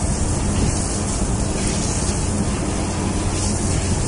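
Steady low drone of ship engines under a constant rushing noise.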